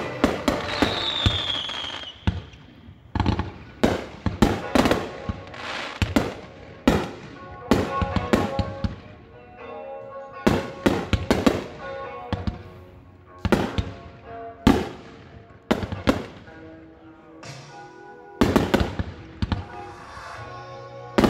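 Consumer aerial fireworks, cakes and canister shells, bursting in rapid, irregular succession: dozens of sharp bangs and crackles, with a brief lull a few seconds from the end. Music plays under the bangs.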